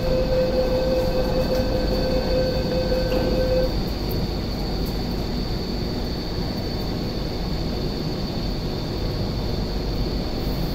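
MTR East Rail Line SP1900 (IKK) train standing at the platform: a steady door-closing warning tone sounds for about four seconds and stops as the doors shut. Underneath is the train's steady hum with a thin high whine.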